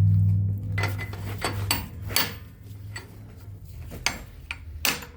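Steel tools clinking and rattling against a brake caliper bracket. Near the end, hammer blows on metal begin as the seized slider pin is driven out. A low hum dies away in the first second.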